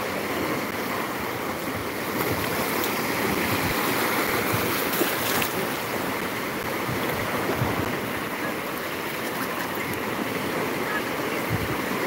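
Small Black Sea waves breaking and washing through the shallows: a steady rushing surf.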